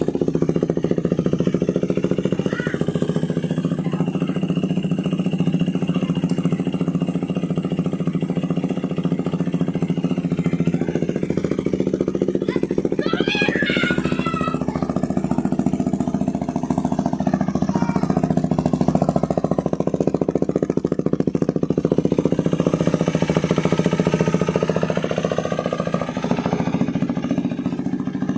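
KTM Duke 390's single-cylinder engine idling steadily through a Remus full exhaust system. A short wavering higher-pitched sound cuts in briefly about halfway through.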